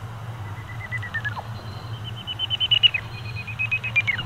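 Greater horseshoe bat echolocation calls heard through a heterodyne bat detector tuned to 80 kHz. There are three runs of rapid, steady-pitched beeps as bats pass one after another, and each run drops away in pitch at its end. A low steady hum runs underneath.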